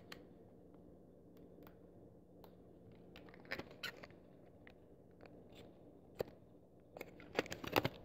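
Padlock packaging being cut open: scattered faint snips, clicks and crinkles, busier about halfway through and near the end, over a low steady hum.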